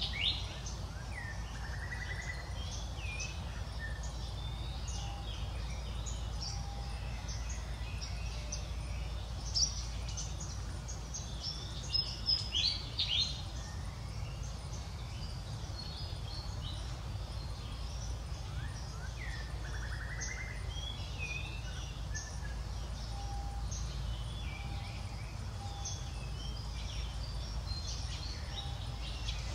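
Birds chirping in the surrounding trees, short high calls scattered throughout, with a louder run of chirps about twelve seconds in. Twice a call dips and then runs into a buzzy trill. A steady low rumble lies under it all.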